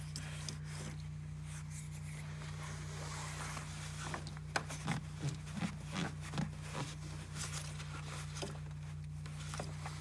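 Light clicks and scrapes of hands working loose plastic and rubber air-intake parts in an engine bay, mostly from about four seconds in, over a steady low hum.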